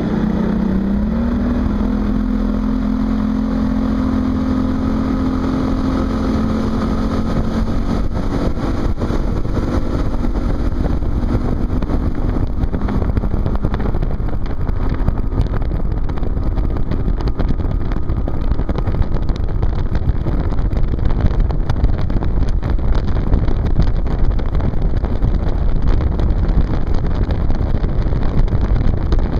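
Motorboat engine speeding up in the first second, then running at a steady pitch. From about halfway its tone fades under a growing rush of wind and water as the boat runs at speed.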